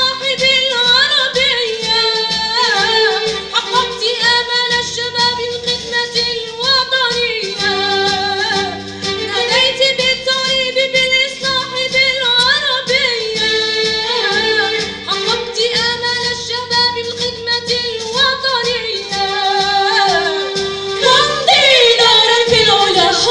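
A woman's solo voice singing an ornamented melody with sliding notes, backed by a vocal ensemble, with low held notes underneath and a regular pulse.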